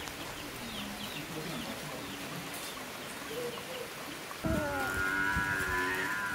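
Light rain falling steadily, with a few short bird chirps. About four seconds in, a louder held pitched sound sets in suddenly over the rain.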